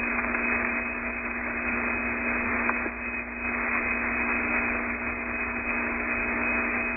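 Steady hiss and faint hum of the air-to-ground voice radio link, an open channel carrying no voice.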